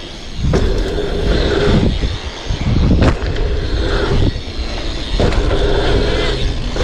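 BMX riding through dirt jumps: wind rushing over the microphone and knobby tyres rolling on hard-packed dirt. The sound swells and drops every second or so as the bike pumps over the rollers and lands, with a brief sharp hit about three seconds in.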